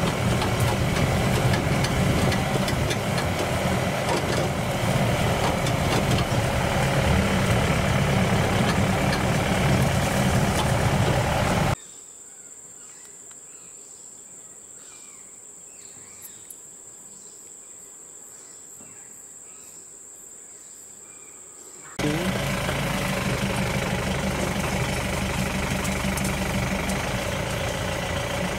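Safari jeep engine running as the vehicle drives along a forest track, a steady low drone. About twelve seconds in it cuts abruptly to a much quieter stretch with a steady high-pitched insect whine and faint chirps, and the engine drone returns about ten seconds later.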